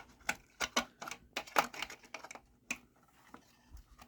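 Irregular clicks and clatter from handling a smoke detector and its battery while fitting the battery into the unit. The clicks come thick for about three seconds, then thin out.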